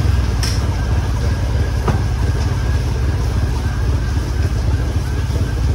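Steady low rumble throughout, with a couple of faint light clicks of hands and tools on the engine's cylinder head.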